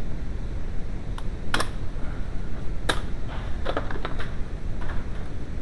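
A handful of sharp, irregular clicks and light taps, hard objects knocking together, over a steady low rumble.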